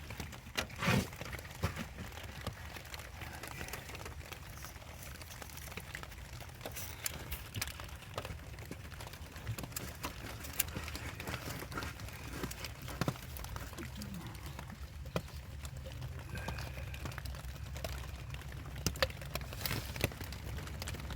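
Scattered light clicks, taps and rustles of hands working on parts, over a steady low hum. A few louder clicks come near the start and near the end.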